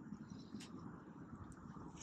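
Quiet outdoor background with a faint, even low wind rumble on the microphone and a couple of faint short clicks.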